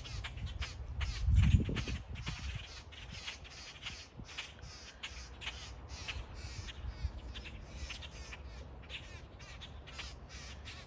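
A flock of birds calling over one another without pause, several short high calls a second. A brief low rumble about a second and a half in.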